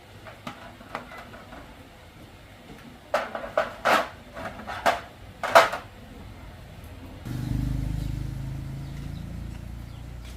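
Several sharp metallic clinks of tools and parts being handled. About seven seconds in, an engine starts suddenly and runs steadily at idle.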